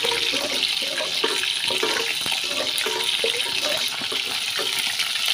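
Curry spice paste cooking in a pot with a little added water, bubbling and sizzling steadily as a wooden spatula stirs it, with many short bubble pops and light clicks of the spatula.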